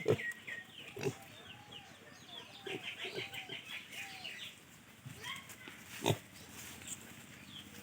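A pig grunting in a few short bursts, the loudest about six seconds in. A run of rapid high chirps sounds in the background around three seconds in.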